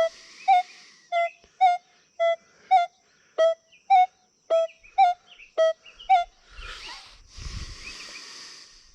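Minelab Equinox 800 metal detector giving a short, repeated target beep, about two a second, as its coil is swept back and forth over a quarter hidden under a fridge magnet: the detector is signalling the coin through the magnet. The beeps stop about six seconds in, and rustling handling noise follows.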